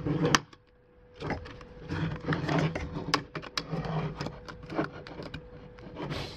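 Hard plastic parts of a suction pool cleaner, the chamber assembly and its ring, rubbing, clicking and knocking against the body shell as they are worked into place by hand.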